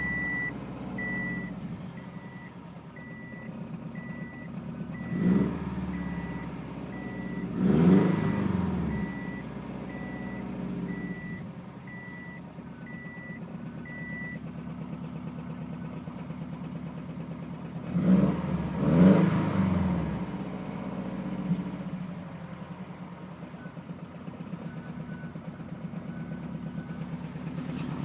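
Subaru WRX turbocharged flat-four idling, with the throttle blipped in short revs four times: about 5 s in, about 8 s in, and twice close together near 18–19 s. An electronic beep repeats about every two-thirds of a second through the first half, fading and then stopping. The owner reports hesitation, low fuel pressure and an exhaust leak at the downpipe flange on this engine.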